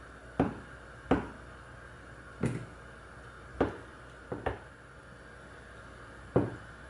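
Kitchen knife coming down on a wooden cutting board: seven sharp single knocks at uneven intervals, about one a second, with two in quick succession about four seconds in.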